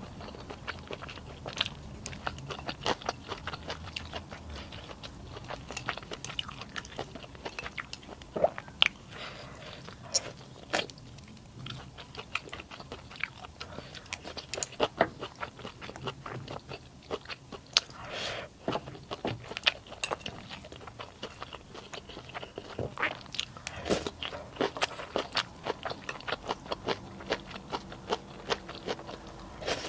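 A person chewing and biting food, with frequent short crunches and wet mouth clicks scattered irregularly throughout.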